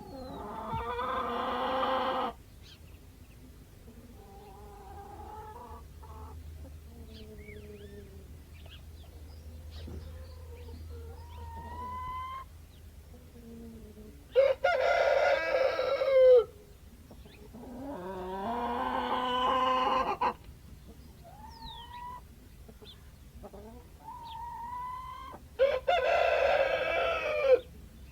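Rooster crowing four times, each crow about two seconds long, with softer, shorter chicken calls and clucks between the crows.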